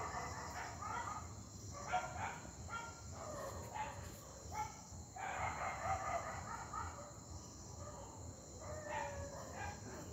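Fruit bats giving irregular squawking, chattering calls in short clusters, typical of bats squabbling while they feed. A steady insect chorus runs behind them.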